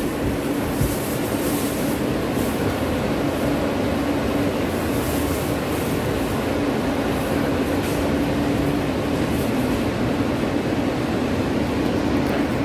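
New York City subway train running, heard from inside the car: a steady rumble with a steady hum under it.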